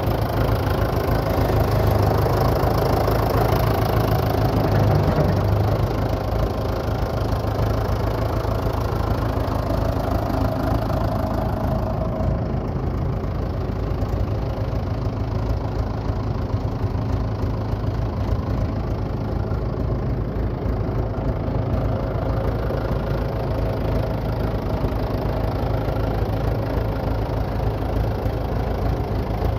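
Vintage JCB loader tractor's diesel engine running at a steady idle, a little quieter after about six seconds.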